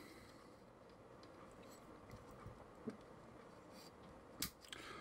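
Near-silent room tone with a few small clicks from handling plastic miniature parts during assembly; two sharper clicks come near the end.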